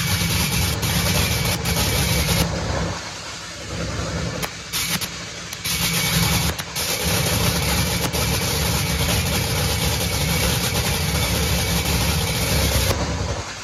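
Top Fuel dragster's supercharged nitromethane Hemi V8 running during a warm-up in the pit. The sound eases for a moment about three seconds in, comes back up, and drops away shortly before the end.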